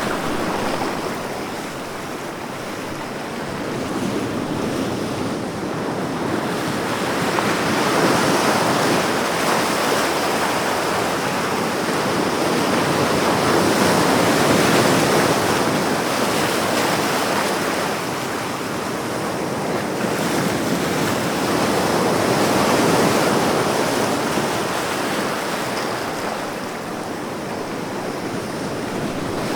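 Ocean surf: waves breaking and washing in, a continuous rushing hiss that swells and eases several times, loudest about a third and halfway through and again near the three-quarter mark.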